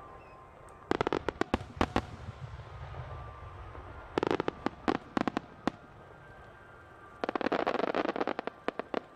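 Aerial firework shells bursting in three rapid clusters of sharp pops and crackles, about a second in, around four seconds in and from about seven seconds in, over a low rumble that fades out by about three seconds.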